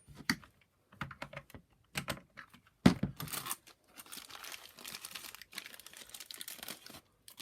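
Clicks and knocks of the plastic power nozzle being handled, the loudest a sharp knock about three seconds in, then a steady rasping for about three seconds as the front screw is turned out with a screwdriver.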